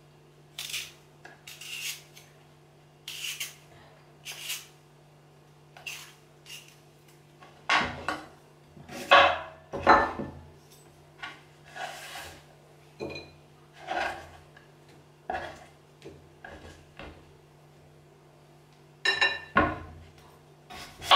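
Hand-held vegetable peeler scraping the skin off a sweet potato in short, irregular strokes, mixed with a kitchen knife tapping and scraping on a wooden cutting board. Near the end a brief clatter of metal on china as the peeler is put down on a plate.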